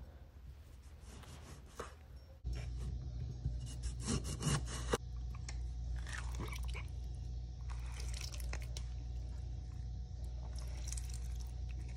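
Limes being cut and juiced with a hand-held citrus press: scattered crunches, squishes and some dripping. A steady low hum sets in a couple of seconds in.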